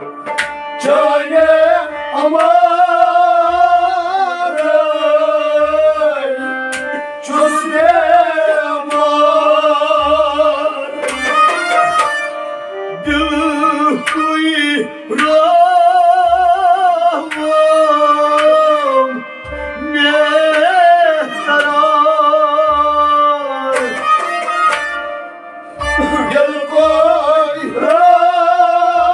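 Kashmiri folk song: a male voice singing over harmonium, bowed sarangi and plucked rabab, with a drum beating low thumps every second or two.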